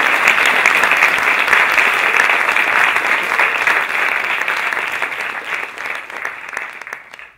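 Audience applauding, a dense steady clapping that thins and dies away near the end before cutting off.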